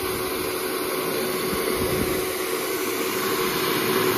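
Nova hand-held hair dryer running, a steady rush of blown air with a constant humming tone from its motor underneath.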